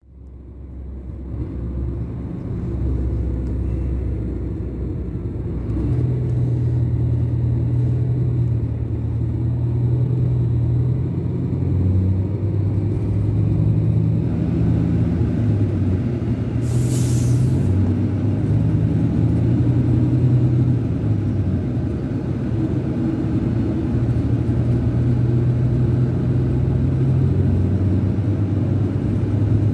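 Scania K410 coach's DC13 turbocharged inline-six diesel running under way, heard from the upper deck inside the cabin, its low drone rising and falling in pitch in steps as it pulls. A brief loud hiss comes about halfway through.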